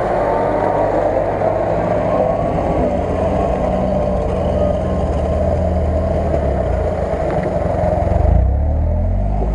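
UAZ-469 off-road vehicle's engine running steadily under load as it crawls over a dirt ridge, getting louder as it passes close by about eight seconds in.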